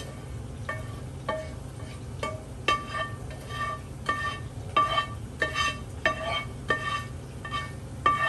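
A utensil knocking and scraping against a metal frying pan to push cooked filling out into a bowl, about a dozen strikes roughly every half second, each leaving the pan ringing briefly, over a low steady hum.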